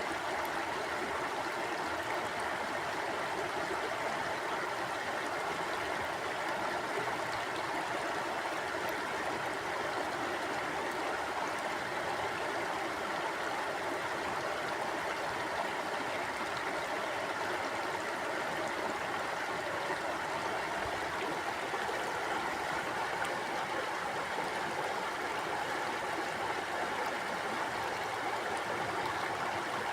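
Mountain stream flowing over rocks: a steady rushing and gurgling of water, even throughout.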